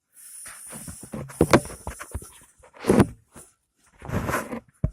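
Handling noise close to the microphone: irregular rustling with a sharp knock about one and a half seconds in, another about three seconds in, and a longer rustle near the end.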